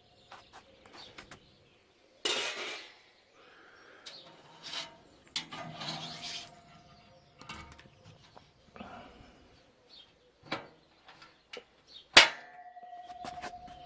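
Metal parts of a charcoal smoker being handled: scattered knocks and scraping noises, then a sharp clank about twelve seconds in that rings on briefly.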